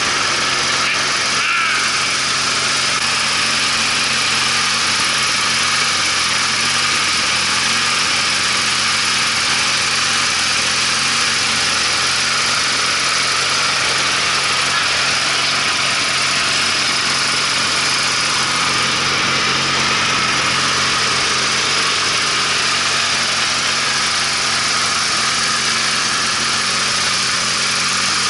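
Riding lawn mower's engine running steadily.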